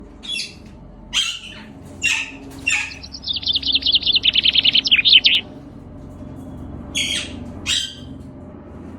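Young rose-ringed (green ringneck) parakeets calling: four harsh screeches a second or so apart, then a fast chattering run of short notes for about two seconds, then two more screeches near the end.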